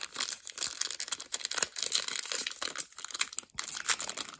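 Foil wrapper of a Panini Contenders football card pack crinkling in the hands and being torn open at its top seam: a rapid, irregular crackle.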